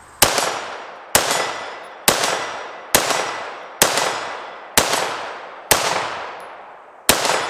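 Short-barrelled AR-style rifle with a muzzle brake firing eight single shots at a steady pace of about one a second, with a slightly longer pause before the last. Each sharp report rings out and echoes away for most of a second.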